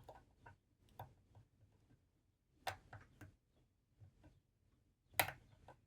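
Faint, irregular small metallic clicks and ticks of a lock pick and tension wrench working the pins inside a Master Lock 6835 padlock, with a couple of louder clicks about two-thirds of a second apart near the middle and one near the end.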